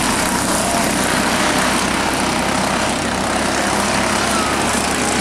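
Junior late model stock cars running laps at speed, with the steady, loud sound of several race engines at once and faint rises and falls in pitch as cars pass.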